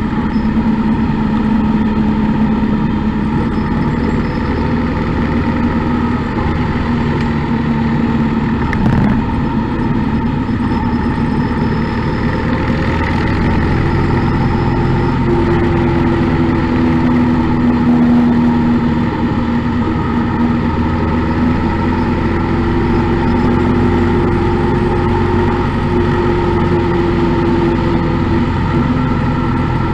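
Motorcycle engine running at road speed, heard from behind the windshield over steady wind and road noise. The engine note steps up in pitch about halfway through, with a single short knock a third of the way in.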